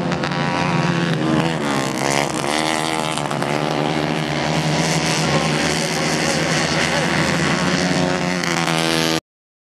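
Several racing kart engines running hard together, a loud drone of several pitches that rises and falls as the karts accelerate and slow through the corners. The sound cuts off abruptly near the end.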